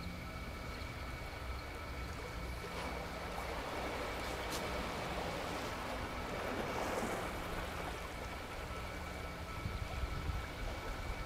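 Calm seashore ambience: a steady low rumble with a wash of small waves that swells for a few seconds in the middle and then fades.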